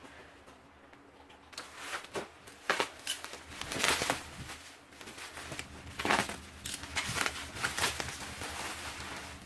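Bubble wrap and plastic film crinkling and rustling as they are pulled off a packaged appliance by hand, in uneven handfuls, with the loudest crackles about four and six seconds in.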